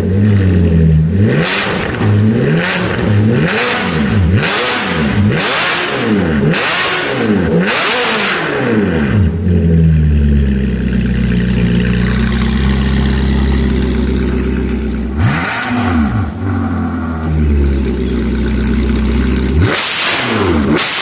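Ferrari California V8 through an Fi Exhaust catless valvetronic exhaust, revved in a quick string of sharp blips about once a second. It then settles to a steady idle, with two more quick blips midway and another rev near the end.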